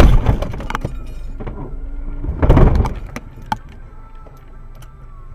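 Car crash: a loud impact with breaking and rattling right at the start, scattered clicks, and a second loud burst of noise about two and a half seconds in, then a low steady rumble.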